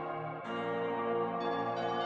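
Ambient background music of sustained, ringing bell-like tones, with new tones coming in about half a second in and again shortly before the end.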